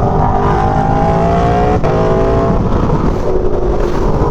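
Aprilia Tuono V4's V4 engine, fitted with an SC-Project GP exhaust, pulling under a rider and rising in pitch. Just under two seconds in, the pitch drops sharply with a quick quickshifter upshift. The engine then pulls again, eases off and rises once more near the end.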